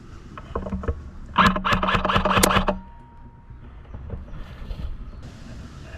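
Airsoft electric gun firing a burst on full auto, the gearbox motor whirring with rapid clicking shots for about a second and a half.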